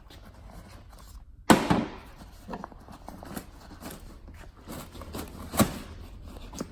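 Sharp knocks and light clicks of hands working a snowmobile seat and its plastic panels loose: one loud knock about a second and a half in, a second near the end, with small clicks and rustles between.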